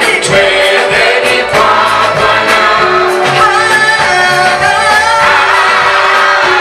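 A choir singing a Swahili gospel song, several voices holding sustained notes that change pitch every second or so.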